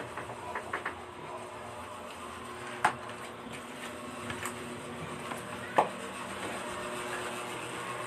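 Steady mechanical hum with a few sharp clicks and knocks over it; the loudest knock comes near six seconds in, another just before three seconds.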